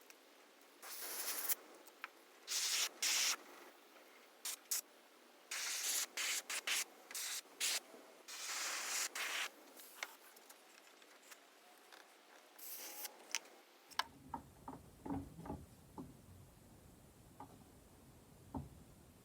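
Hand sanding of a fishing lure's body in short, irregular scratchy strokes. About fourteen seconds in the sound changes to a quieter stretch of scattered light clicks and taps.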